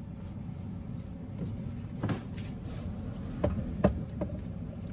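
Seat belt and body movements in a parked car's cabin: several sharp clicks and knocks, the loudest about four seconds in, over a steady low rumble.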